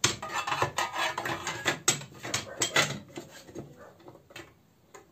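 Scroll saw's side cover being fitted onto the saw body: scraping and rubbing with a quick run of sharp clicks and knocks, thinning out to a few light taps after about three seconds.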